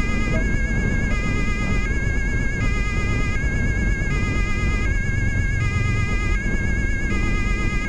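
German police two-tone siren (Martinshorn) switching back and forth between a high and a low pitch, about one change every three-quarters of a second. It is heard from inside a speeding car's cabin, over a steady rumble of engine and road noise.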